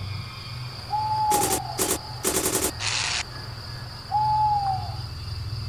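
An owl hooting twice, each hoot a single slightly falling note, about three seconds apart. Between the hoots come several short harsh bursts of noise, over a low steady hum.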